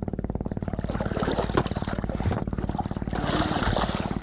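Fishing boat engine running steadily with rapid, even pulses, with water splashing and churning twice, around one second and three seconds in. The boat's propeller is fouled with rope.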